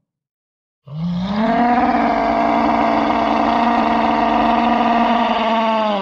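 Made-up Ankylosaurus call sound effect: one long, loud bellow that starts about a second in, slides up quickly, holds a single steady pitch for about four seconds, then slides down near the end.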